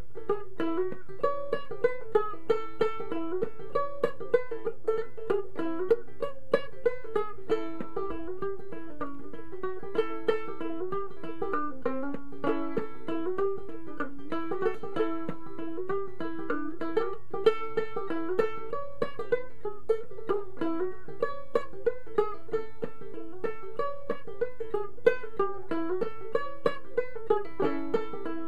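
Tenor gourd banjo ukulele played clawhammer style, a continuous run of quick plucked notes with sharp brushed strikes carrying an old-time fiddle tune in the key of A.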